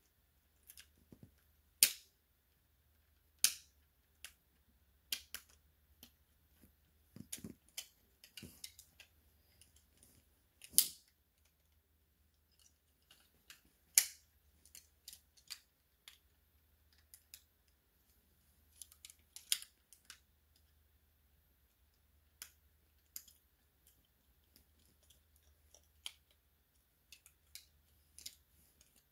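Plastic toy parts clicking and snapping at irregular intervals as a Transformers figure is handled and its joints and pieces are moved. A few clicks are sharp and loud.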